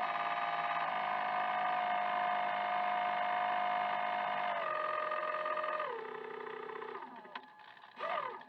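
RC jetfoil model's motor whining steadily, its pitch dropping in two steps as the throttle is eased back, then dying away, with one short rev near the end.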